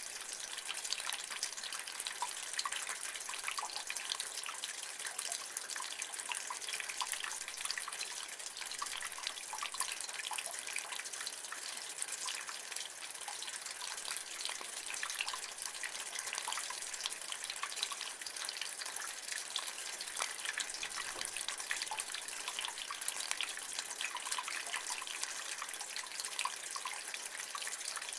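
Rainwater running and splashing from a gutter: a steady, dense patter of drips and trickling water.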